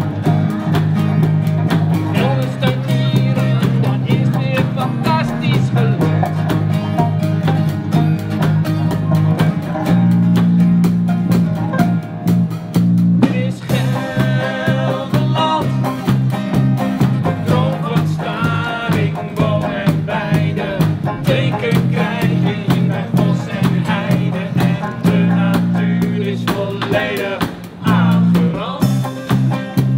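Live acoustic street band playing a bluesy country tune: strummed acoustic guitar and banjo over electric guitar and a drum kit, with a steady beat and a prominent bass line.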